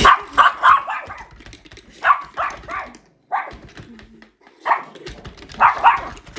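A dog barking in quick runs of two or three barks, five times over.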